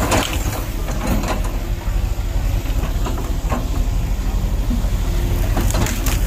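JCB 140 tracked excavator's diesel engine running steadily under load as its bucket pushes into a tree's branches, with a few short crackles of branches giving way.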